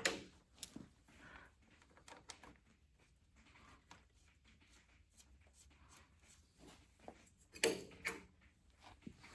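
Light metal clicks and knocks of a rebuilt injection pump and its bolts being worked into place on a Case 830 tractor engine, with a sharp knock at the start and a louder clunk near the end.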